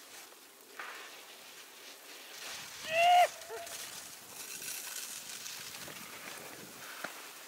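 Skis hissing and scraping over snow through carving turns. About three seconds in comes a short whooping call from a person, its pitch rising and then falling.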